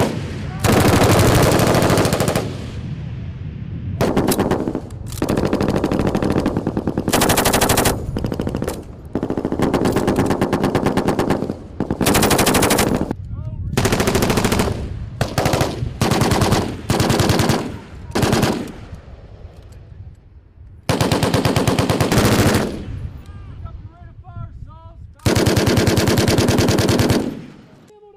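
M249 SAW 5.56 mm light machine guns firing bursts of automatic fire, each burst about half a second to two seconds long, with short gaps between them, about a dozen bursts in all.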